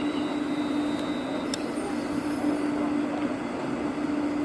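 Two Class 350 Desiro electric multiple units standing at the platforms, giving a steady electrical hum from their onboard equipment. A high steady tone stops with a click about a second and a half in.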